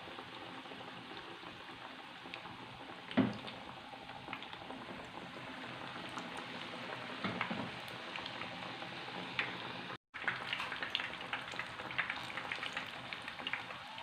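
Batter-coated banana fritters deep-frying in hot coconut oil: a steady sizzle with crackling. There is a sharp knock about three seconds in. The sound cuts out briefly near ten seconds, and the crackling is busier after that.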